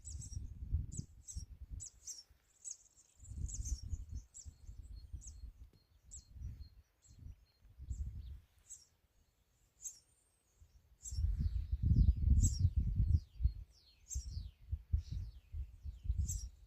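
Small birds chirping and singing in short high calls and quick falling notes, over irregular low rumbling gusts of wind on the microphone that are loudest a little past the middle.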